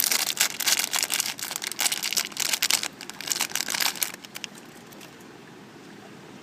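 Small plastic packaging bag crinkling and rustling as it is handled and opened, for about four seconds before it stops.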